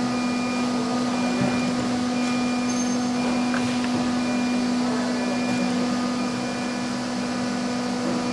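1325 disc-type ATC CNC router running steadily: a constant hum with several steady whining tones over a rushing noise, and a faint high tone that comes and goes about once a second.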